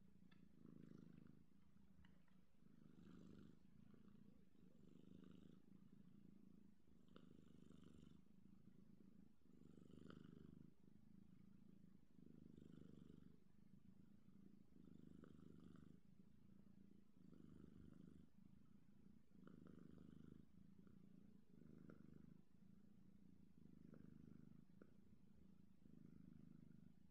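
A British Shorthair kitten purring softly and continuously, the purr swelling and easing with each breath about every two seconds.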